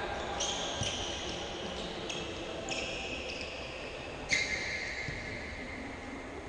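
Futsal game play in an echoing sports hall: players' shoes squeak sharply on the court floor several times, the loudest about four seconds in, over the thuds of the ball.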